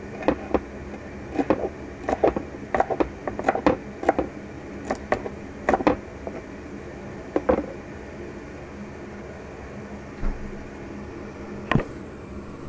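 Kitchen knife chopping fresh coriander on a wooden cutting board: uneven knocks of the blade on the board, several a second for the first seven seconds or so, then only a couple of single knocks.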